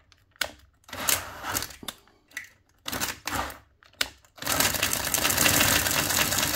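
Handheld power drill with a large 12 mm bit boring into a 3D-printed plastic hull, run in several short bursts for about four seconds, then held on steadily.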